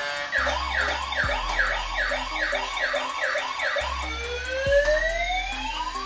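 Electronic siren of a toy police car: a fast repeating yelp, about three cycles a second, that changes about four seconds in to slower rising and falling wails.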